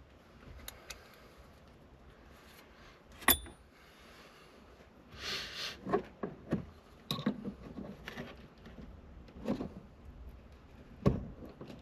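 Irregular clicks, scrapes and knocks of hands and a tool working at the retaining clip of a 1990 Toyota Space Cruiser's accelerator pedal, trying to free it. One sharp click about three seconds in rings briefly.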